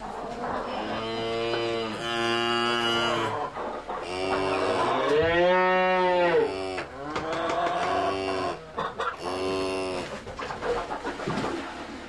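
Cattle mooing: a series of long moos from several cows, one after another, with one higher call near the middle that rises and then falls in pitch.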